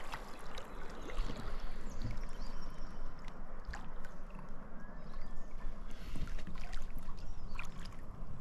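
Steady rush of river water, with a few faint clicks and knocks scattered through it.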